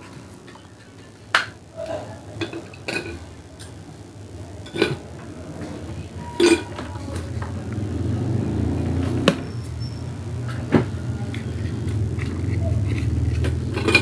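Hand-working the parts of an electric kettle's switch with a sanding sponge: scattered light clicks and taps of small metal parts being handled, and from about halfway a steady low rubbing noise.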